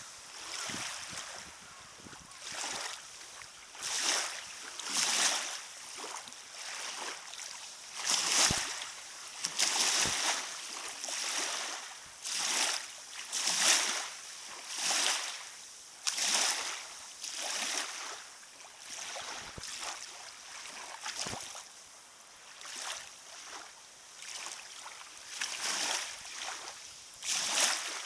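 Small waves lapping at a lakeshore: a run of soft, irregular splashing swishes, roughly one every second.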